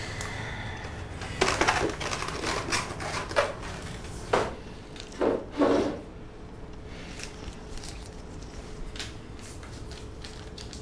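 Knocks and rubbing of a foam takeaway box being handled on a table and a person getting up from the table, loudest in a few separate bumps over the first half, then a few faint clicks.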